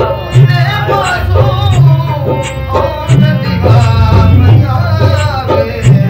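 Background music with a regular drum beat under a melody that slides in pitch.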